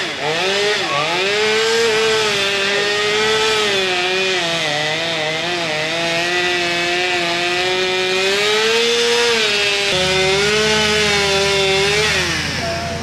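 Chainsaw running at high revs as it cuts into a tree trunk, its pitch sagging and recovering under load and falling away near the end. About ten seconds in, a lower, steady engine note from the pickup truck holding the pulling chain joins underneath.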